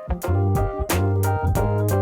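Background music with a steady beat: piano or keyboard chords over heavy bass and drums.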